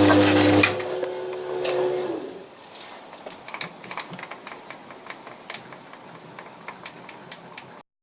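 A workshop machine's electric motor is switched off with a click about half a second in. It winds down over the next second or so, its hum dropping in pitch. Scattered light clicks and ticks follow until the sound cuts off near the end.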